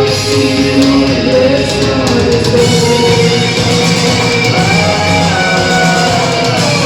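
Gothic rock band playing live: loud guitar and drums under long held notes and gliding melodic lines.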